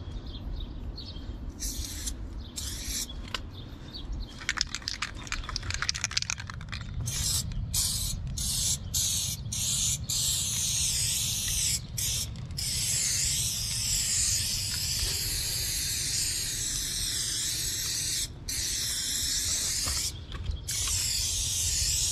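Aerosol spray paint can hissing as paint is sprayed onto a brick wall: several short bursts at first, then a long, almost continuous spray broken by a few brief stops.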